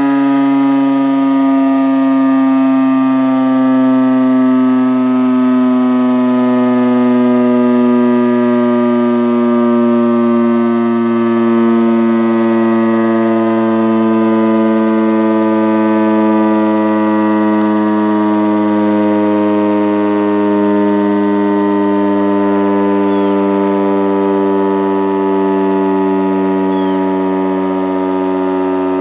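Federal Signal STH-10 rotating outdoor warning siren sounding its attack signal during a tornado siren test: one loud, steady wailing tone whose pitch slowly falls, swelling and fading gently every few seconds as the head rotates.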